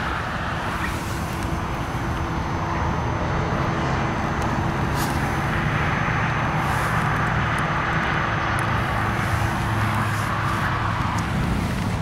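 Steady road traffic noise: a broad hiss that swells through the middle, over a low hum and a faint steady tone.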